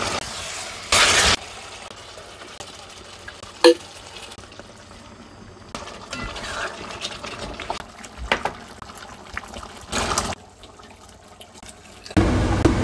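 Meat frying and bubbling in a hot pot while a spatula stirs and scrapes it, with a loud rush about a second in and a sharp knock of utensil on pot a few seconds later.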